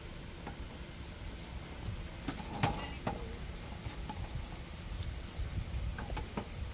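A few metal clinks and knocks as nested camping cook pots are pulled apart and set down on a metal camp table, the loudest with a short ring about two and a half seconds in. Under them, spring rolls sizzle steadily in a pan of hot oil.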